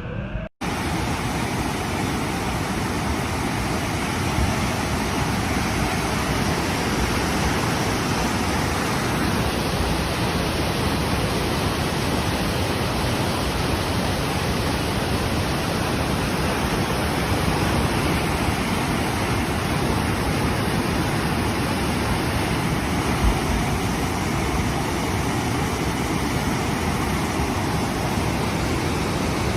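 Steady, loud rush of fast-flowing floodwater, starting abruptly after a brief break about half a second in.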